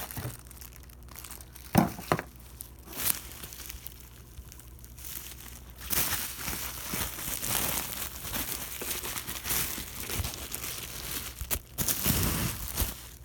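Plastic packaging crinkling and rustling as a boxed radio is unwrapped, with a few sharp knocks in the first three seconds and steadier rustling through the second half.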